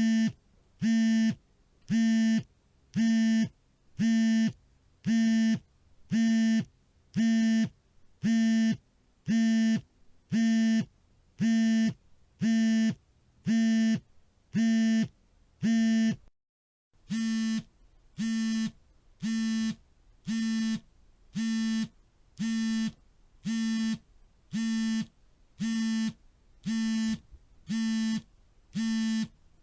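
Mobile phone vibrating in a steady repeating pattern: a half-second buzz about once a second. The buzzing stops for under a second near the middle, then resumes slightly quieter.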